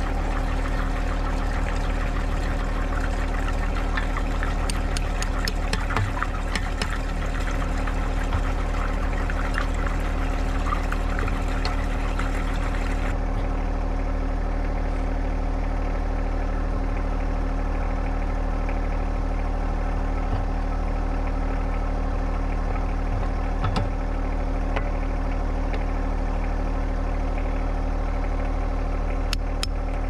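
John Deere 1025R sub-compact tractor's three-cylinder diesel engine running steadily at an even speed.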